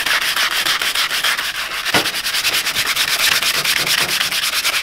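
Coarse 80-grit sandpaper rubbed by hand in fast, even back-and-forth strokes along a wooden hammer handle, a steady scratching, with a small knock about two seconds in.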